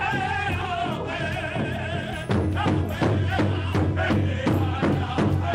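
Powwow drum group: high, wavering voices sing, then about two seconds in the players' padded beaters strike the big hide drum together in a steady beat of about three strokes a second.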